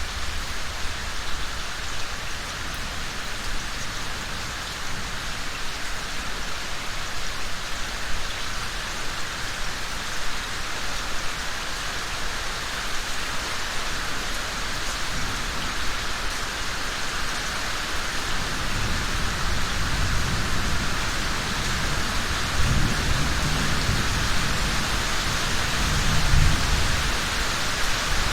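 Steady rain pattering down, with a low rumble of thunder rolling in during the second half and loudest near the end.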